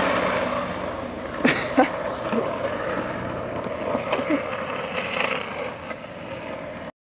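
Skateboard wheels rolling on pavement, a steady rumble that slowly fades, with a few short knocks in the first half. The sound cuts off abruptly just before the end.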